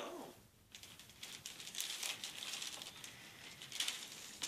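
Paper gift bag and its contents rustling and crinkling as a child rummages inside it, in irregular bursts starting about a second in.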